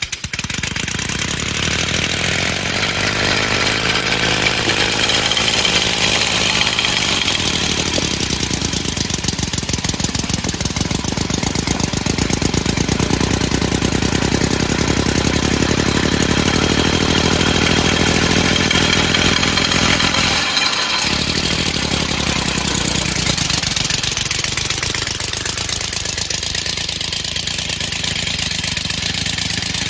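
Homemade three-cylinder compressed-air engine driving a lawnmower body on 150 PSI, a steady run of rapid exhaust puffs, with a brief dip about two-thirds of the way through. It turns fewer RPM than its builder hoped for.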